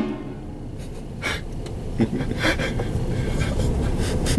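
A blast from a vehicle-mounted train horn cuts off at the start, its chord fading over about a second. Then comes a low steady rumble of the moving vehicle with a few short rustles and clicks.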